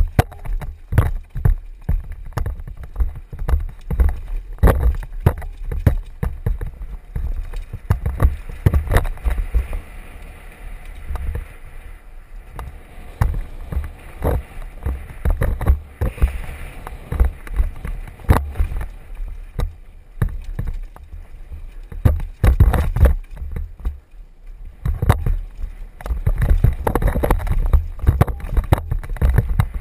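Downhill mountain bike clattering over a rocky dirt trail: rapid, irregular knocks and rattles as the tyres, chain and frame hit rocks, over a constant low rumble, heard from a helmet-mounted camera.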